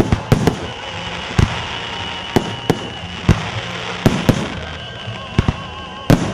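Fireworks salute shells bursting: about a dozen sharp bangs at irregular intervals, some coming in quick pairs.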